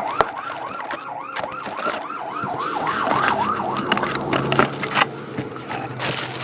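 Emergency vehicle siren passing outside, sounding as rapid rising-and-falling sweeps at about three a second and fading after a little over halfway through.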